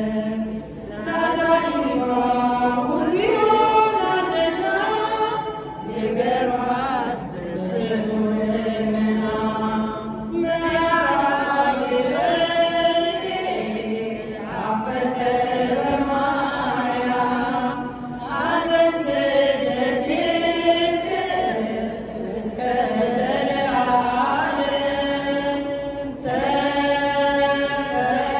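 Women's choir singing an Amharic Ethiopian Orthodox hymn to Mary, unaccompanied. The phrases last about four seconds each, with a brief pause between them.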